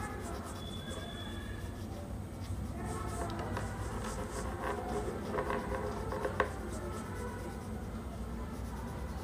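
Yellow-ochre pastel crayon rubbed back and forth on drawing paper: a soft, faint scratching of colouring strokes, with a few small ticks a little past halfway.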